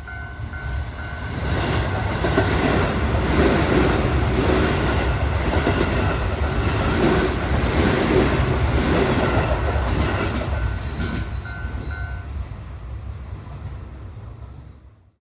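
Keio Line train passing a railroad crossing, its wheels clattering rhythmically over the rail joints, while the crossing's electronic warning bell dings over and over. The bell stops about twelve seconds in as the train noise fades, and the sound cuts off abruptly near the end.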